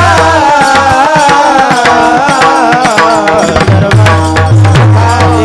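Devotional kirtan music: a long wavering melodic line held over hand-drum playing, with deep bass drum strokes that slide down in pitch, mostly in the second half.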